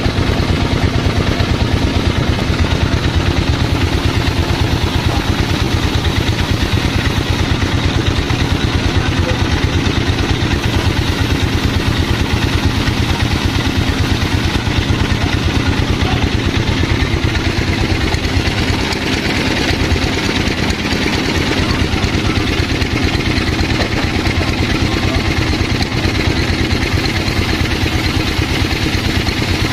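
An engine running steadily at a constant speed, with an even low pulsing rumble that eases slightly about nineteen seconds in.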